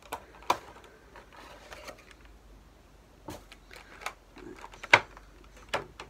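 Cardboard and plastic packaging being handled as a Funko Pop vinyl figure is taken out of its window box: scattered sharp clicks and knocks with soft rustling between them, the loudest knock about five seconds in.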